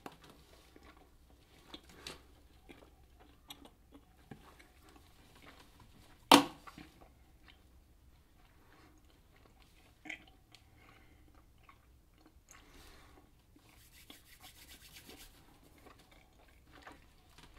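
Chewing of a large mouthful of Hubba Bubba bubble gum, with soft scattered wet clicks and smacks and one sharp, loud sound about six seconds in.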